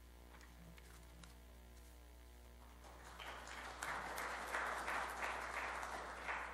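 Audience applauding, beginning about three seconds in and swelling quickly to a steady patter of many hands; before that only faint room hum with a few light taps.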